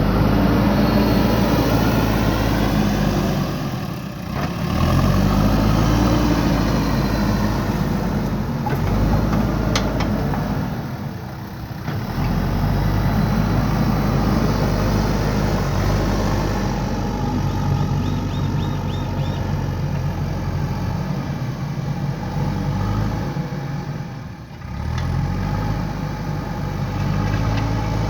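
JCB 3DX backhoe loader's diesel engine running under working load. Its revs drop briefly three times and climb again each time.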